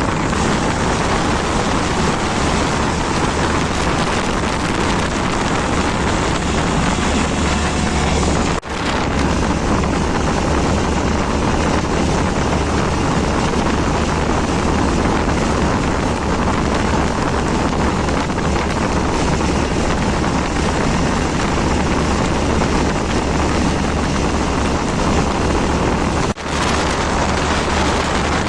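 Steady, loud wind noise on the microphone over a low engine-like drone, with two brief dropouts, one about a third of the way in and one near the end.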